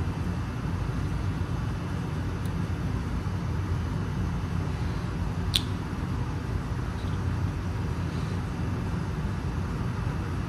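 Steady low background rumble, with one light click about halfway through as the camera and lens guard are handled.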